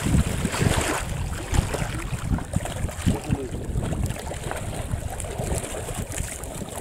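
Water splashing in the rocky shallows as a carp is released by hand and thrashes back into the lake, loudest in about the first second. Gusty wind rumbles on the microphone.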